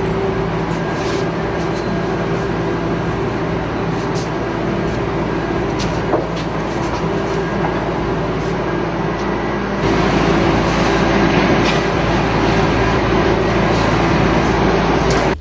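Steady low rumble with a droning hum, like running machinery. It shifts and gets a little louder about ten seconds in.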